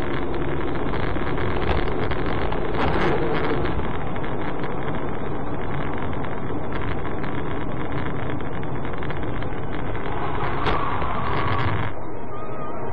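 Steady road noise of a car driving on a wet road, heard from inside the car: tyre hiss on the wet surface with engine noise underneath.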